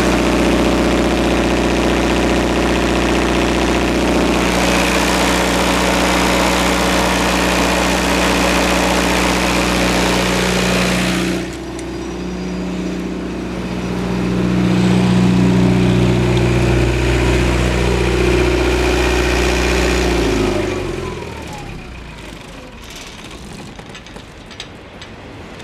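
Perkins 4.236 four-cylinder diesel engine of a 35 kW Kohler generator set running at a steady speed, with a high hiss that drops away suddenly about eleven seconds in. About twenty seconds in the engine is shut down, and its pitch falls as it winds to a stop.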